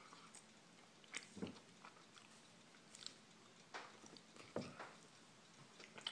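Faint, scattered crunches and crackles of a crunchy S'mores Chips Ahoy cookie being crumbled between the fingers and chewed, about five small crackles spread apart.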